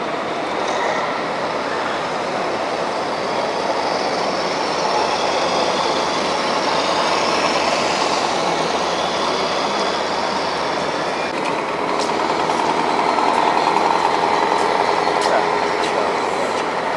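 Radio-controlled model trucks running, a steady vehicle-like rumble and hiss with a faint high whine, and a few light clicks in the last few seconds.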